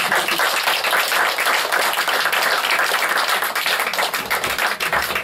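Audience clapping, breaking out all at once and dying down near the end.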